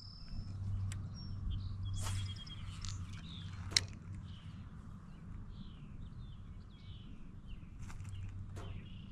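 Outdoor pond ambience: a high, steady insect trill cuts off within the first second, then small birds chirp a series of short falling notes, with a few sharp clicks and a low steady hum underneath.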